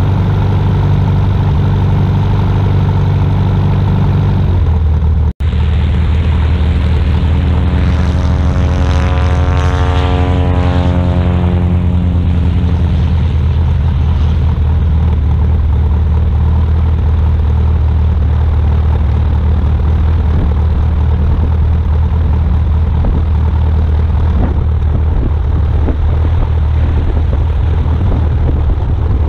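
Light aircraft engine running steadily at idle, close to the microphone, with a brief dropout about five seconds in. From about 8 to 13 seconds in, another aircraft passes, its sound sweeping down and then up in pitch over the idle.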